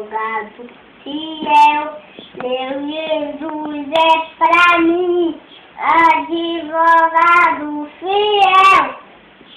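A five-year-old boy singing a Portuguese gospel song alone, with no accompaniment, in short phrases of drawn-out notes with brief pauses between them. The singing stops shortly before the end.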